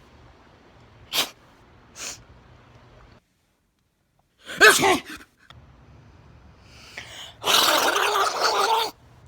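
A person sneezing: two short sharp sounds in the first two seconds, a loud short voiced sneeze about halfway through, and a longer, rough sneeze lasting about a second and a half near the end.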